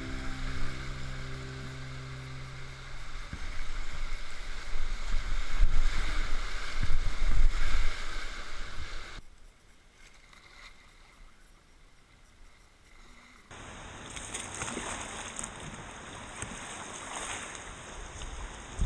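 River water rushing and splashing around a whitewater kayak, with a heavy low rumble on the microphone that is loudest in the first half. It drops off sharply about nine seconds in and comes back as a steady hiss of running water about four seconds later.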